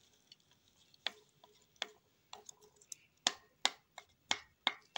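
A spoon stirring yogurt in a dish, clicking against the dish as it goes round: a few scattered clicks at first, then a steadier run of about three clicks a second from about three seconds in.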